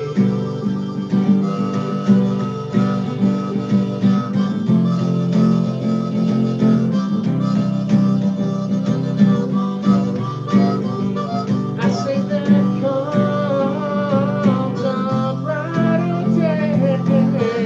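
Harmonica playing a solo over a strummed acoustic guitar, an instrumental break with no singing. The harmonica's bending melody comes forward more strongly in the second half.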